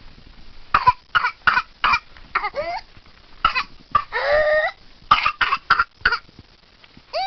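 Whooping cough (pertussis) coughing fits: runs of four or so quick, short coughs, each run followed by a long, rising-pitched whooping intake of breath. The longest whoop comes in the middle, and another begins near the end.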